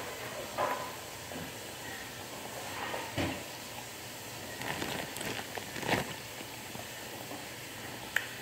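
Irregular knocks, clicks and rustles of close handling near the phone's microphone, about six of them, while grapes are being eaten, over a faint steady hiss.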